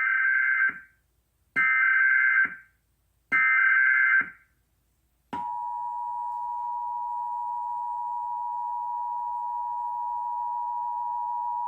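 Emergency Alert System header: three short bursts of SAME digital data, a second apart, which mark the start of an EAS alert. About five seconds in, the steady two-tone EAS attention signal (853 and 960 Hz together) starts abruptly and holds.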